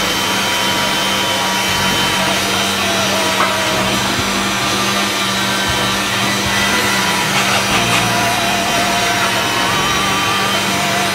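Electric pasta machine running, its motor and rollers turning steadily as a sheet of fresh pasta dough is fed through, over a steady kitchen background noise.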